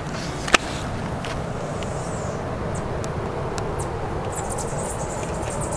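Outdoor background: a steady low rumble with a single sharp click about half a second in and a few faint ticks. From about four seconds in, a fast high-pitched pulsing chirr joins it.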